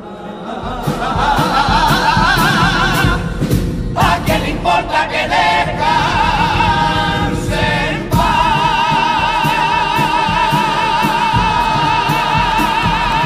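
Male carnival comparsa chorus singing the close of a pasodoble in several-part harmony with vibrato, backed by Spanish guitars and a drum keeping a steady beat. From about 8 s in the chorus holds one long final chord.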